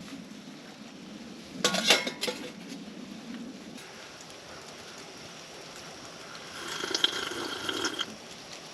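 Camp cookware and a cup clinking as coffee is handled, with a few sharp metal clinks about two seconds in and a brief liquid sound near the end.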